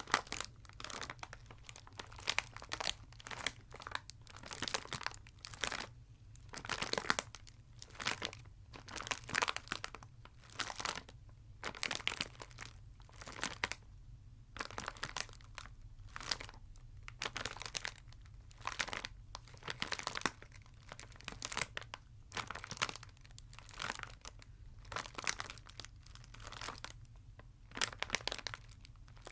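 Chocolate wrappers being crinkled and crumpled by hand, a dense run of irregular crackles.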